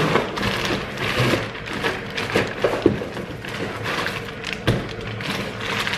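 A car's rear bumper diffuser being unpacked from its shipping box: continuous rustling and scraping of packaging, with several sharp knocks and thuds as the part and box are handled.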